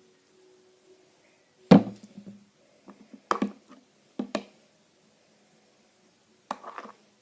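Four knocks, as of containers and supplies being handled and set down on a hard surface; the first is the loudest, and the others follow a second or two apart.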